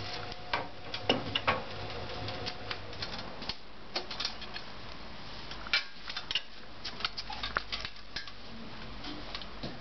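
Irregular clicks and taps of wire leads and clips being handled on a small sealed lead-acid battery, over a steady low hum from the spinning magnet rotor of a homemade generator.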